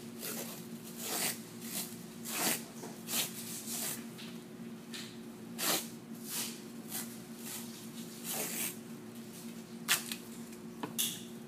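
Elastic stretch tape being pulled off its roll and wrapped around a foot and big toe, in a dozen or so short pulls at uneven intervals.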